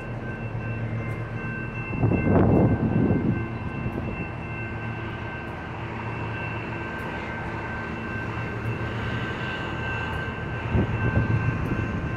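Nippon Sharyo diesel multiple unit idling at the platform: a steady low engine hum, with two louder noisy surges, one about two seconds in and one near the end.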